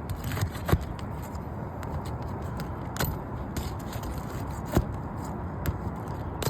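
A pry tool working under 3-tab asphalt shingles to pull their nails: scraping, with a few sharp clicks as it catches the nail heads, over a steady background noise.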